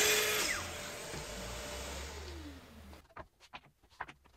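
Festool plunge saw finishing a cut through coloured MDF, then its motor and blade spinning down with a falling whine that fades out over about two seconds. A few light knocks follow near the end as the rail and scrap spacers are handled.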